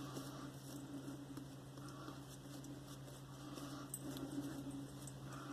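Silvertip badger shaving brush swirling wet Mitchell's Wool Fat soap lather, a faint, steady crackly patter as water is worked into the lather.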